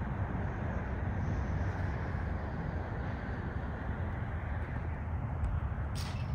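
Steady low rumble of outdoor background noise with no speech, and one short sharp tap about six seconds in.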